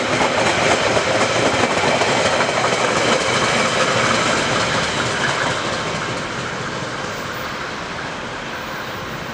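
Passenger carriages rolling past close by on the rails behind a DFB diesel locomotive, the wheels running over the track in a steady rush. About halfway through the sound begins to fade as the train draws away.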